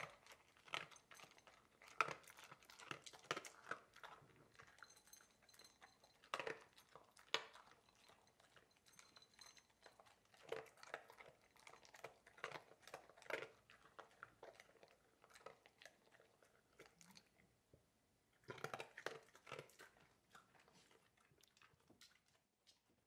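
Labrador retriever crunching dry food from a glass bowl: faint, irregular crunches and clicks of chewing, a short pause about two-thirds of the way through, then a last quick flurry before the eating trails off near the end as the bowl is emptied.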